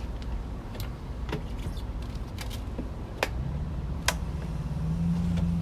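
Onan one-cylinder RV generator running steadily with a low drone, a few light clicks and knocks over it.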